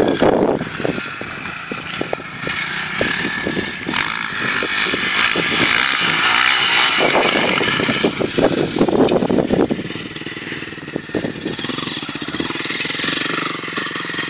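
Honda CRF450R dirt bike's single-cylinder four-stroke engine revving and easing off as it is ridden, louder for a few seconds around the middle as it comes close.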